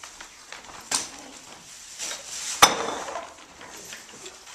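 Knocks and handling noise as props are gathered up from a wooden stage floor: a sharp knock about a second in, and a louder one about two and a half seconds in, as a long wooden handle strikes the boards.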